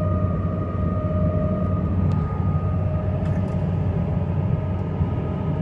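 2008 Ford F-450's 6.8-litre V10 gasoline engine and drivetrain cruising at about 2,200 rpm and 60 mph, heard inside the cab: a steady low drone with road noise and a steady high whine over it.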